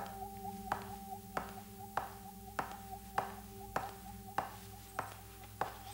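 Hard-soled shoes walking at a steady pace on a hard floor, about ten evenly spaced footsteps. Under them runs a steady humming drone.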